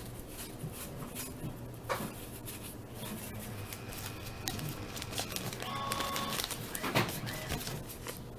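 Baseball cards being handled and flipped through, with soft clicks and sliding of card stock over a faint steady hum.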